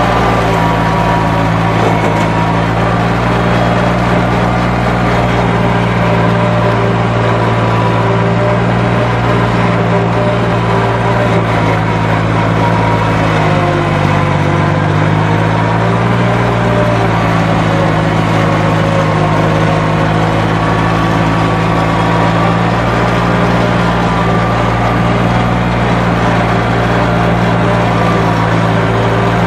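Lawn mower engine running steadily at a constant speed, its pitch dipping briefly about halfway through before recovering.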